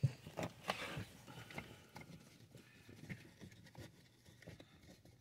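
Irregular plastic clicks and knocks as a pleated cabin air filter is worked up into its housing under the dashboard, loudest in the first second, then fainter scattered tapping.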